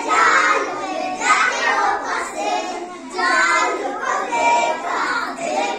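A group of young children singing together in chorus, voices rising and falling through the phrases of a children's action song.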